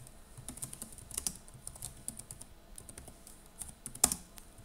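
Typing on a computer keyboard: a quick, irregular run of keystrokes, with one louder stroke about four seconds in.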